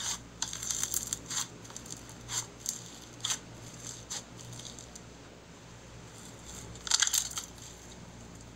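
Thick white fluffy slime being kneaded and pressed by hands, giving scattered crackling and popping clicks, with a louder burst of crackles about seven seconds in.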